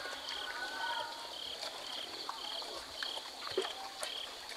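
Insects calling: a steady high drone, with a short high chirp repeating about twice a second. Faint scattered clicks and rustles sit underneath.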